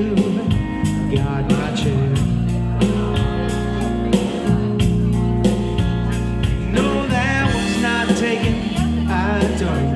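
A live rock band playing, with electric guitar and electric bass over a steady beat; near the end a wavering, bending melodic line rises above the band.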